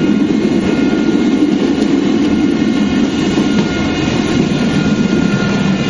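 Passenger train running along the rails: a steady, loud rumble of the moving carriage, with a faint high whine in the middle.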